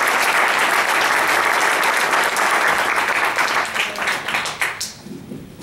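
Audience applauding in a hall, dense clapping that thins out and stops with a few last claps about five seconds in.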